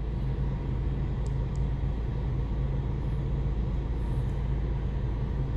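Steady low hum and rumble inside a car cabin.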